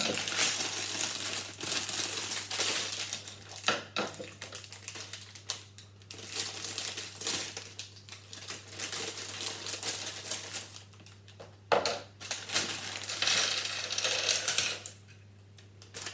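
Loose plastic Lego pieces clattering and rattling as they are handled, in stretches of quick sharp clicks broken by short pauses.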